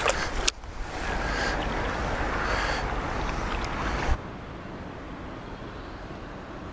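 Steady rush of wind and water with a sharp click about half a second in. Just after four seconds the sound drops abruptly to a quieter, lower rush.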